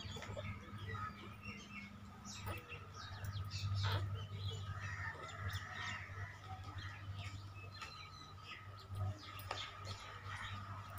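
Small birds chirping on and off in many short calls, over a steady low hum.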